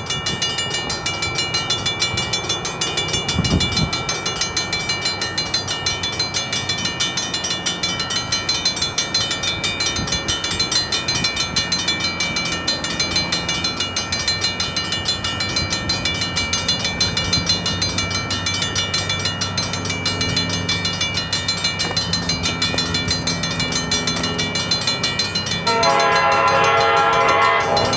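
Railroad grade-crossing bell ringing in a steady, regular repeating pattern. About two seconds before the end, an approaching passenger train's locomotive horn starts to sound, louder than the bell.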